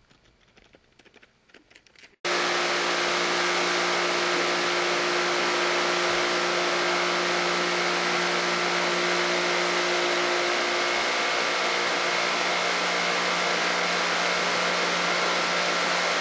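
Pressure washer running steadily with a hissing spray. It starts suddenly about two seconds in, with a steady motor hum under the spray.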